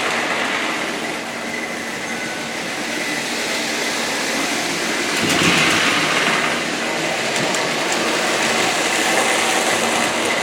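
Lionel O-gauge 0-4-0 switcher locomotive and its freight cars running around the track, a steady mechanical rattle of motor, gears and wheels on the rails, louder for a couple of seconds about halfway through as the train passes close by.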